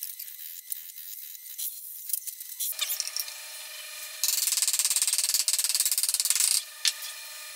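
Chisel paring and scraping hardwood in a joint: a run of small clicks and scrapes. About four seconds in, a loud, steady wood-on-wood rubbing sets in for a couple of seconds as a wooden piece slides into the joint.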